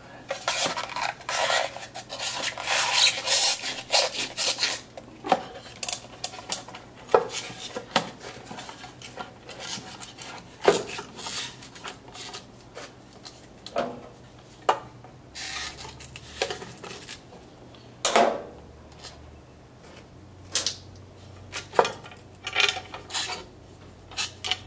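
Hand work on metal parts and tools: rubbing and scraping for the first few seconds, then scattered clicks, taps and knocks as pieces are handled, over a faint steady hum.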